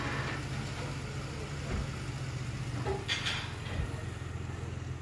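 Nissan 4×4 pickup's engine idling steadily, with a brief noisy rush about three seconds in.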